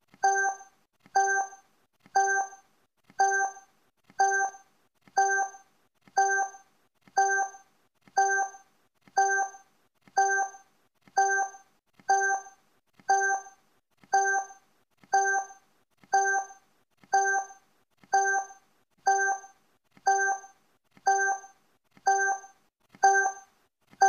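Countdown timer sound effect: a short pitched electronic blip, repeating evenly once a second, each one fading quickly.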